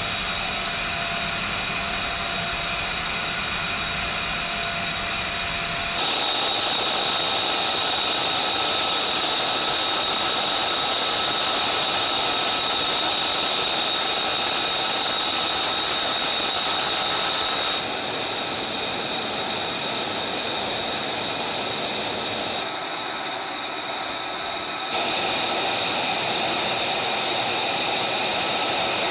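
Flight-line machinery noise: a steady high whine over a rushing hiss, jumping abruptly in loudness and tone several times.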